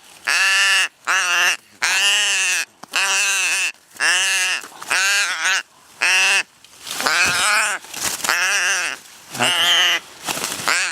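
Raven giving a dozen or so harsh calls in quick succession, each rising then falling in pitch. These are distress calls from a bird tangled in bird netting while it is being cut free.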